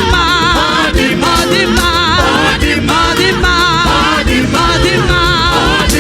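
Gospel praise song performed live by a church choir and band: voices hold long notes with vibrato over a steady band accompaniment with a beat.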